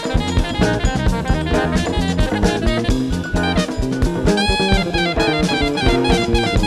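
Early-1970s jazz-funk recording: a saxophone plays the melody over a busy drum-kit groove and bass line, holding one long note about four seconds in.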